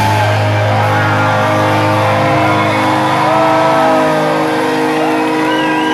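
Music: a song with a melody gliding between notes over steady held chords.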